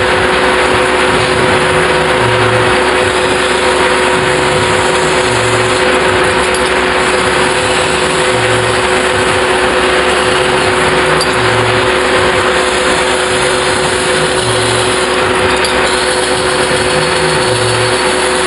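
Metal spinning lathe turning a large sheet-metal disc while a long hand-held spinning bar is levered against it. The result is a loud, steady rushing noise with a constant two-note hum.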